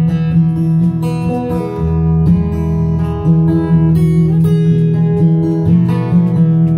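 Acoustic guitar strummed and picked in an instrumental break between sung verses of a folk song.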